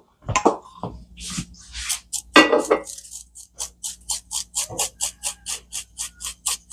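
Glass shaker shaken over radishes in a cast-iron skillet: a quick, even rattle of about four to five shakes a second, starting a few seconds in after a short louder clatter.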